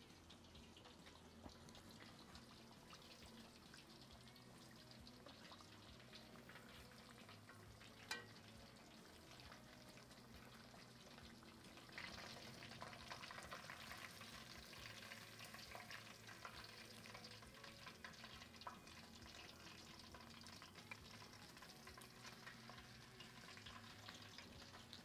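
Faint sizzling and crackling of hot oil frying potato fries in an enamelled pot. About twelve seconds in it grows louder as a metal spoon stirs the fries, and there is a single click about eight seconds in.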